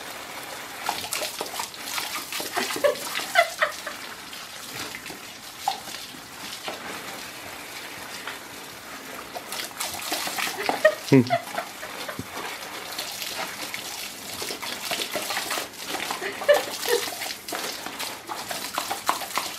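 Garden hose stream splashing onto a wet brick patio and onto a black Labrador that bites at the jet, with a few short dog noises now and then.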